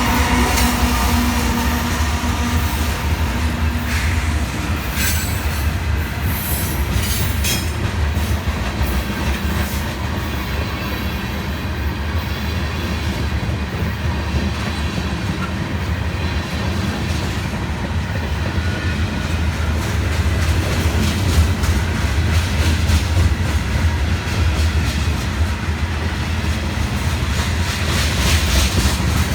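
CSX freight train's cars rolling past with a steady low rumble, wheels squealing and clattering over the rail joints.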